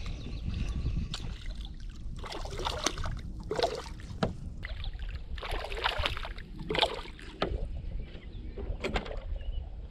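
Water swishing and splashing around a kayak in a series of short strokes, about one a second.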